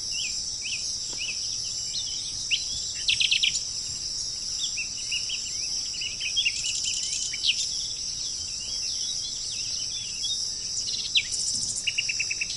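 Small birds chirping and calling, with a few quick trills of rapidly repeated notes, over a steady high-pitched insect drone.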